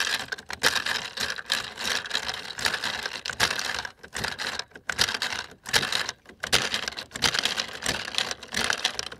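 Loose brass 9mm cartridges rattling and clicking in a MagPump 9mm magazine loader as rounds are added to top off a Glock magazine: a rapid, irregular clatter with brief pauses.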